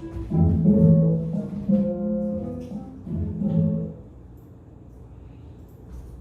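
Brass-led orchestral music playing a few held chords, stopping about four seconds in, leaving only a faint steady hum.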